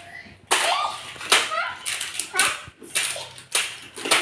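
A young child's voice: a string of short, high-pitched utterances and vocal sounds, no clear words.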